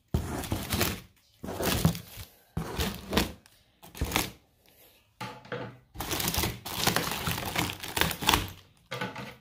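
Packaging being handled and unwrapped: irregular crinkling and rustling, with a few knocks, as new BMX parts are unpacked.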